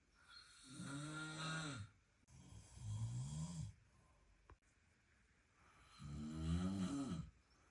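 A sleeping person snoring: three drawn-out snores, each rising and then falling in pitch, the third coming after a pause of about two seconds.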